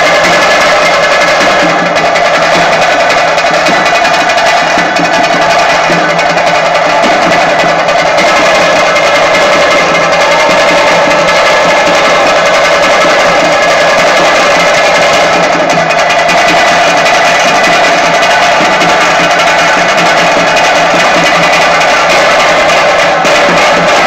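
Drums played very loud, fast and without a break: the drumming that drives a huli vesha tiger dance.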